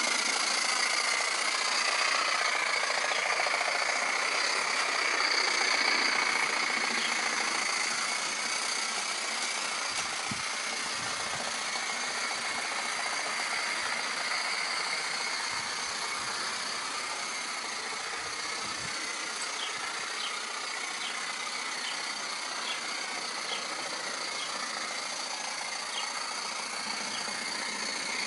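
Coal-fired model steam locomotive running on garden railway track: a steady hiss of steam with a mechanical rattle, somewhat quieter after about six seconds, with faint small ticks in the later part.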